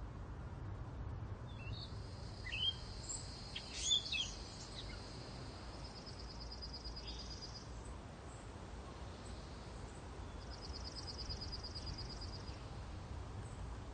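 Birds chirping against a steady low background of outdoor ambience, with a few sharp calls a couple of seconds in. Later comes a rapid high trill, twice.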